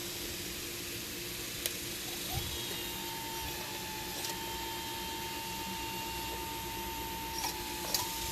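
Hydraulic pump and motor of an RC scale Liebherr 954 excavator running with a steady hum; a higher steady whine joins about two and a half seconds in, with a few sharp clicks along the way.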